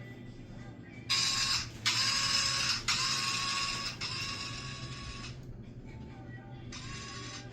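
A small motor-driven mechanism whirring in several runs of about a second each, with short gaps between them, over a steady low hum.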